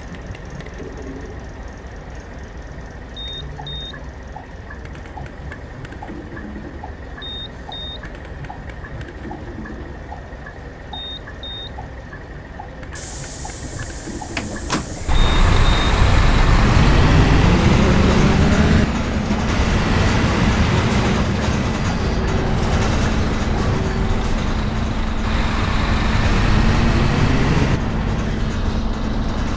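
Bus engine idling, with regular soft ticking and a pair of short high beeps every few seconds. About halfway in a hiss starts, and then the engine opens up loudly, its pitch climbing as the bus pulls away, before settling into a steady loud drone.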